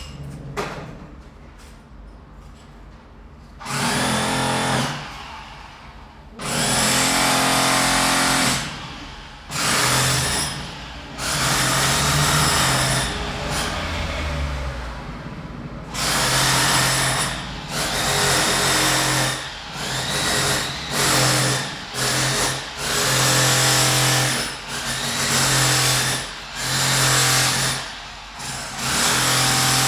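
Power drill at a construction site, run in about ten start-stop bursts of one to a few seconds each after a few seconds of low hum.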